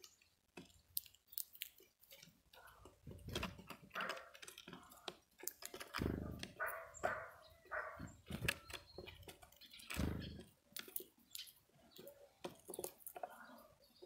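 Sharp clicks and cracks of a European greenfinch husking sunflower seeds at a wooden feeder table, with a few dull low thumps about three and a half, six and ten seconds in.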